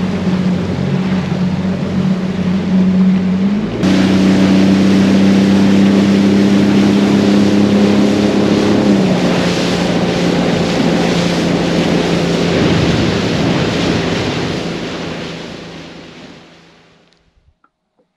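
Motorboat engine running under way, with water rushing past the hull and wind noise; the engine note shifts about four seconds in and again about nine seconds in. The sound fades out over the last few seconds.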